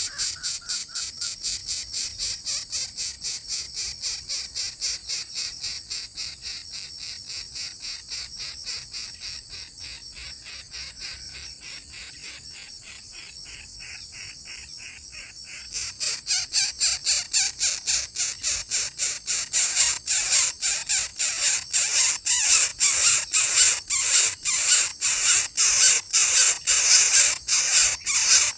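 High-pitched insect chirping in an even rhythm of about three pulses a second, over a thin steady high whine. It fades gradually, then jumps back louder about sixteen seconds in.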